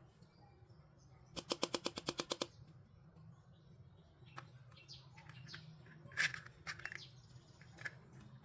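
Plastic toys being handled: a quick, even run of about a dozen clicks, then scattered light clicks and taps, one louder near the end.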